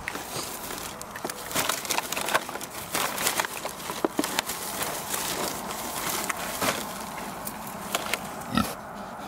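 Pigs chewing and snuffling as they root through the soil and leaves for strawberries: a run of irregular crunching clicks and snorts, with the sharpest ones about four seconds in and near the end.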